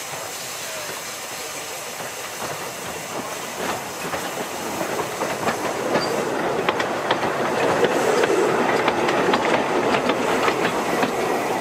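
Narrow-gauge steam train on the 2 ft gauge Ffestiniog Railway approaching and running past close by, steam hissing and wheels clicking sharply over rail joints and pointwork. It grows louder from about a third of the way in and is loudest near the end.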